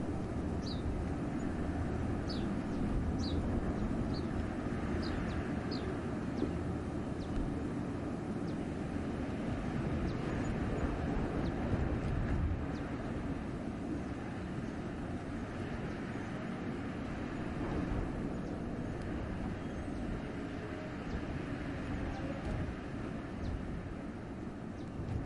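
Wind rushing through a winter forest, a low, steady rush that swells and eases. Over it, a small bird gives short, high, falling calls about eight times in the first six seconds, with a few fainter calls later on.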